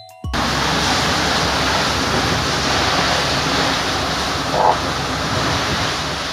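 Heavy rain pouring down in a storm: a loud, steady hiss that starts abruptly just after the start, with a brief higher tone about four and a half seconds in.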